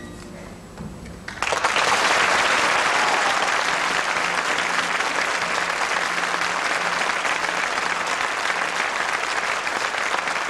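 An audience breaks into applause about a second and a half in, after the music has died away, and keeps clapping steadily.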